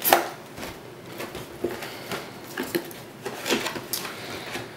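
Cardboard box being opened by hand: a sharp handling sound right at the start, then scattered light rustles and knocks as the cardboard flaps are folded back.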